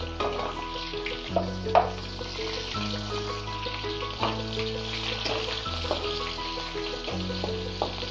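Chopped onion sizzling in hot oil in a metal kadai, stirred with a slotted metal spatula that clicks and scrapes against the pan, with one sharper knock about two seconds in. Background music with held chords changing about every second and a half plays underneath.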